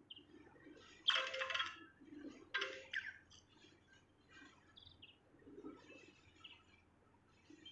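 A songbird singing: two loud, rapid bursts of high song about a second in and near three seconds, with softer scattered chirps between and after.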